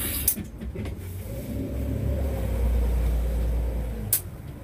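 Motor yacht's engine running at slow manoeuvring speed, its low rumble swelling for about three seconds from about a second in. A sharp click near the start and another near the end.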